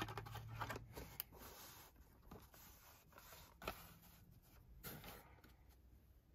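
Faint taps and light scrapes of Hot Wheels blister-pack cards being handled and set down on a table, a few scattered clicks about a second apart, over a low hum.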